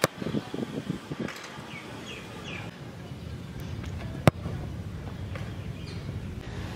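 A football kicked hard with a studded football boot: a sharp thud right at the start and a louder one about four seconds in. A few short bird chirps come around two seconds in, over steady outdoor background noise.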